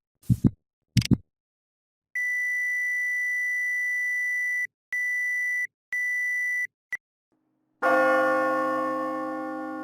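A string of separate sound effects. Two short low thuds come first, then a long steady electronic beep followed by two shorter beeps at the same pitch, a click, and finally a bell-like chime that rings and slowly fades.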